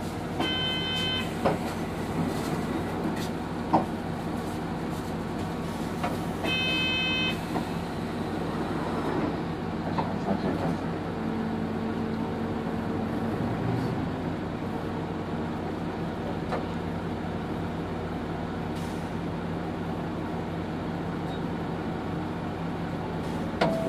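Hino BJG-HU8JLFP city bus running, heard from inside the passenger cabin: a steady drivetrain hum, with a short electronic chime sounding twice, near the start and about six seconds in, and a few clicks and rattles.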